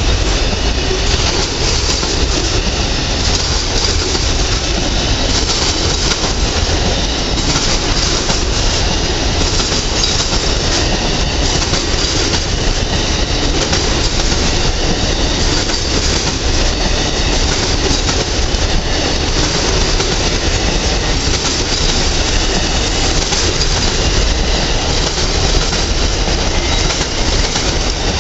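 Amtrak passenger train's silver cars rolling past at close range: a steady, loud rush of wheel-on-rail noise.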